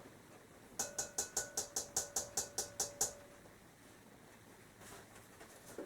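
A metal spoon clinking against a bowl about a dozen times in quick, even succession, roughly five clinks a second, each with a short ringing tone.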